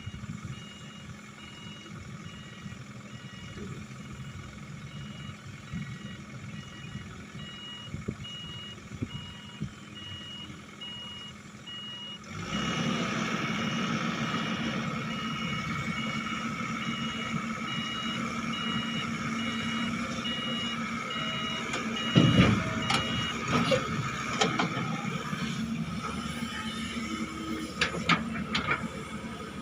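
Excavator's travel or backup alarm beeping about once a second over the diesel engine running. About twelve seconds in the engine gets louder as it is worked harder, the beeping stops near the end, and a few sharp metal knocks come late on.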